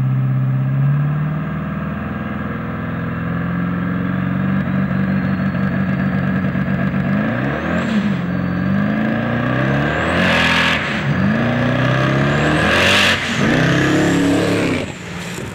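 Turbocharged LSX V8 car engine running, then revving hard in repeated pulls, its pitch climbing and dropping several times. A high turbo whistle rises under the revs and breaks twice in the second half into a loud hiss as boost is released.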